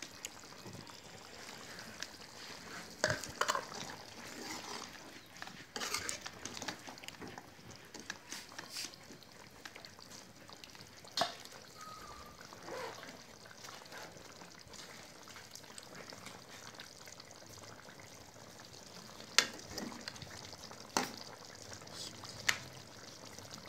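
A pot of keema and potato curry simmering with a steady bubbling hiss, while a spatula stirs it and a ladle scrapes the pan. Several sharp knocks and clinks come from the utensils, the loudest ones near the end as curry is ladled onto a serving plate.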